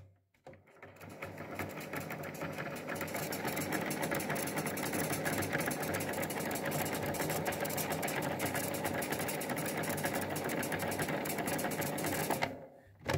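Unitra MK 433 cassette deck's tape transport winding the tape at speed: a steady mechanical whir with rapid fine ticking. It builds up over the first couple of seconds and stops abruptly near the end.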